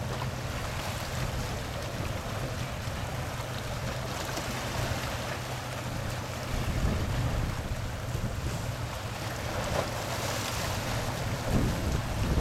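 Wind buffeting the microphone and water rushing along a boat's hull, with a steady low hum underneath and a few stronger gusts near the end.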